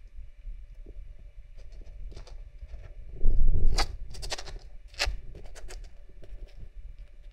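A kitten's claws scratching and pawing at a floor, giving a run of small clicks and scrapes, with a louder burst of rustling and a thump a little after three seconds in.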